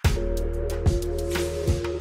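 Background music: held chords over a steady beat.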